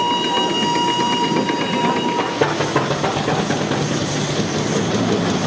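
A steam whistle holding one steady high note that stops about two seconds in, over the hissing and clattering of running steam engines. The clatter carries on after the whistle ends.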